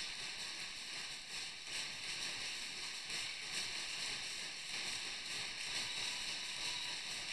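Steady crowd noise from spectators in a large sports hall, with faint scattered clicks through it.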